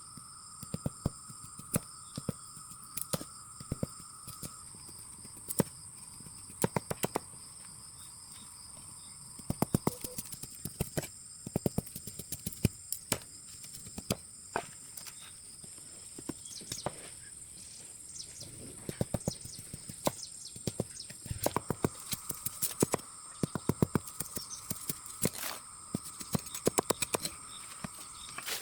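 Irregular sharp taps and knocks, single or in quick clusters, over a steady high-pitched drone in the background.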